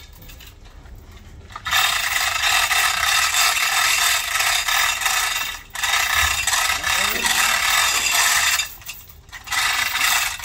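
Metal ratcheting mechanism clattering in three long spells, the first starting about two seconds in, with short breaks near six and nine seconds.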